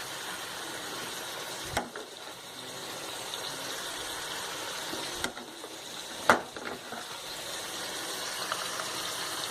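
Minced chicken frying in oil in a pan, with a steady sizzle as it is sautéed and its moisture cooks off. A utensil knocks against the pan three times, the loudest near the middle.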